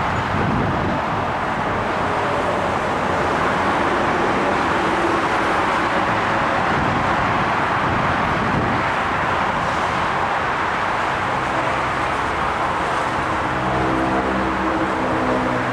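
Steady rushing noise of a GO Transit train moving through the station, with a low diesel engine hum joining about thirteen seconds in.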